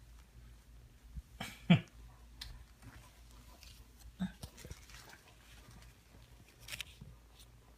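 Young kittens moving about with small scratching and rustling clicks, and a short, sharp kitten cry that falls quickly in pitch about two seconds in, followed by a softer short sound about four seconds in.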